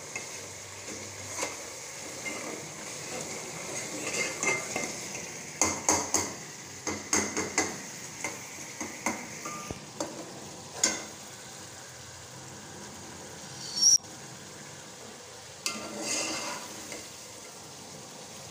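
Steel ladle stirring dal in an aluminium pot, scraping and clinking against the pot's sides, over a steady sizzling hiss from the pot on the gas flame. There is a quick run of knocks in the middle and one sharp, louder clank about three-quarters of the way through.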